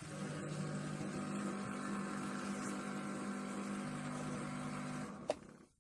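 Small mains-powered electric circulating pump humming steadily, cutting off about five seconds in, followed by a sharp click.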